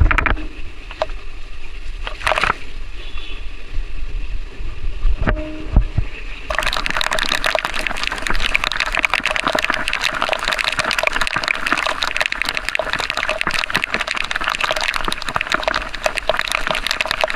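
Rain and water spray around a motorcycle riding in a monsoon downpour. About six and a half seconds in it turns suddenly into a dense, steady hiss and patter of water.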